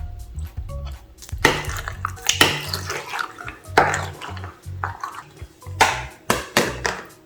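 Background music with a steady bass beat, over wet stirring and squelching sounds of slime being mixed, several times over.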